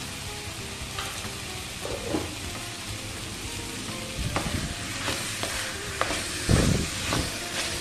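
Spiced chicken pieces sizzling in a hot pan, with a steady hiss. From about four seconds in, a wooden spatula stirs and scrapes the chicken against the pan, with a few louder knocks near the end.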